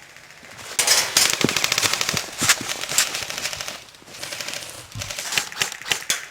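Airsoft guns firing rapid full-auto bursts: a long loud burst of about three seconds starting about a second in, then a softer run of shots.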